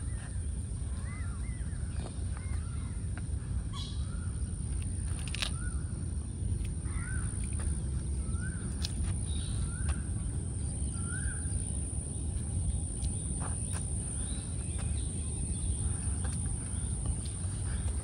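Wetland ambience: birds call again and again with short rising-and-falling whistled notes, thinning out after about twelve seconds. Underneath runs a steady high insect drone and a low rumble.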